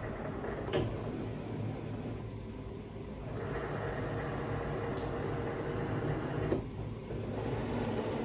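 Cricut Maker 3 cutting machine loading a cutting mat: its motor and rollers run steadily as it draws the mat in and measures the mat's length, starting about three seconds in. A few short clicks come before and during it.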